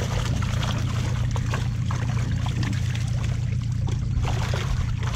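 Water sloshing and splashing as a mesh net bag of fish is worked through the water against a boat's side, over a steady low motor hum.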